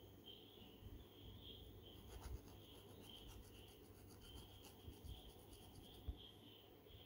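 Faint scratching and rubbing of a comb's tip drawn through hair against the scalp, with a few soft bumps, over a steady pulsing chirp of crickets.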